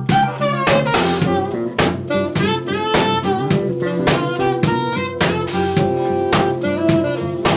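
Tenor saxophone playing a melodic jazz-funk line over a drum kit groove and electric bass, with regular drum and cymbal hits.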